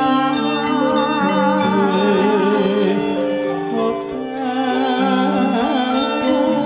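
Javanese gamelan ensemble playing, with bronze kettle gongs and metallophones ringing held notes that change every half second or so. A higher melody with a wavering vibrato runs over them.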